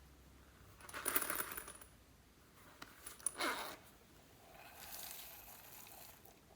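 Glossy slime being worked by hand in three short bursts of crackly, clicking squishes.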